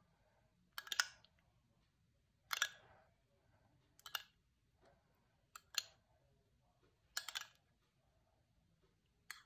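A spoon spreading mayonnaise over a salad in a glass dish: six short smearing sounds, about one every second and a half.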